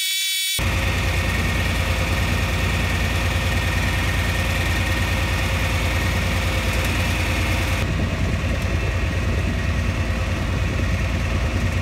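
Farm tractor engine running steadily while pulling a hay wheel rake, an even low throb heard from inside the cab.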